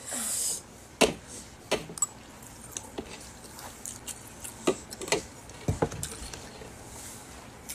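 Scattered light clicks and clinks of cutlery against a bowl during a meal, a few a second at most and irregular, after a short rustling burst at the very start.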